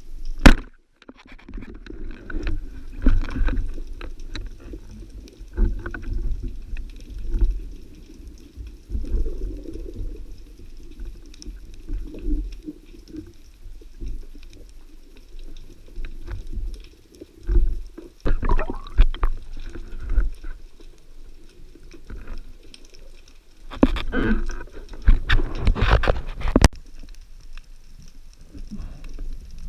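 Underwater recording: low rumbling water movement against the camera, with irregular bursts of bubbling and gurgling and a couple of sharp clicks.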